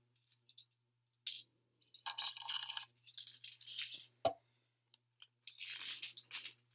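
Metal pin-back buttons clinking and rattling against one another as a handful of them is sorted through, in short bouts of clatter, with one sharp single clink a little past the middle.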